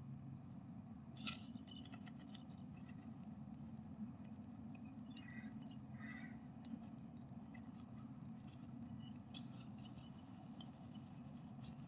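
Great tit shuffling and settling into its nest inside a nest box: faint scratching and rustling of claws and feathers on the moss-and-hair nest lining. Two soft high peeps come about five and six seconds in, over a steady low hum.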